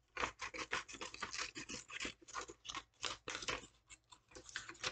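Scissors cutting a sheet of paper in a run of quick snips, several a second, with a few brief pauses between runs.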